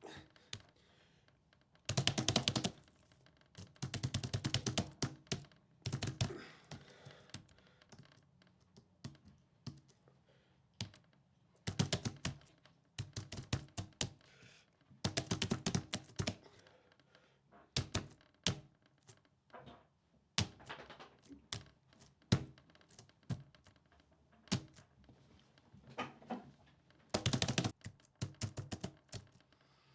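Typing on keys in quick runs of keystrokes with pauses between them, and some heavier thunks among the clicks.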